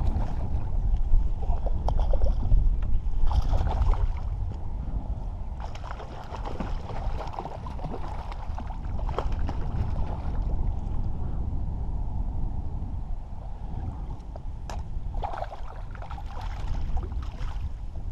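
Wind buffeting the microphone over water lapping at the bank, with irregular splashes as a hooked trout thrashes at the surface while it is played and netted.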